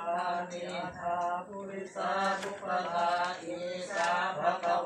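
Buddhist chanting in Pali: voices intoning on steady, held notes in short phrases, with a breath about every second.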